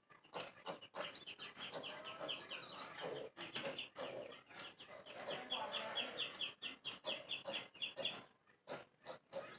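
Birds chirping in two rapid runs of short, high, slightly falling notes, about seven a second, the first about two seconds in and the second, longer, from about five seconds in.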